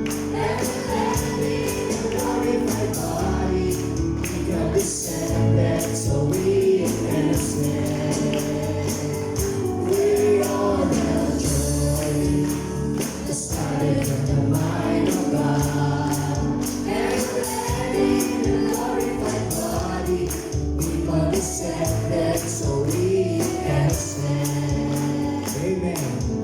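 Gospel song sung by a group of voices with band accompaniment and a steady percussive beat.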